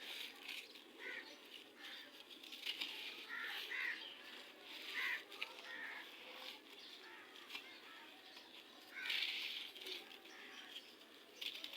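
Gritty red sand crumbling in close-up, a crisp grainy crackling of small grains breaking and trickling, with a louder burst of crumbling about nine seconds in.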